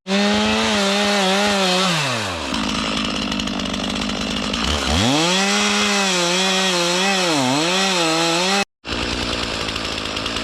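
Stihl MS311 gas chainsaw running at high revs while cutting. It drops to idle about two seconds in, revs back up about five seconds in, and dips briefly once more.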